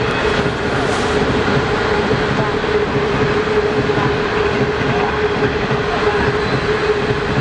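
25T passenger coaches of a train hauled by an SS8 electric locomotive rolling past on the rails: a steady, even run of wheel and rail noise with a held tone underneath.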